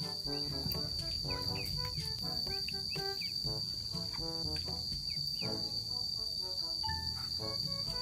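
A steady, unbroken high-pitched insect trill, heard over background music of short pitched notes with a low bass line.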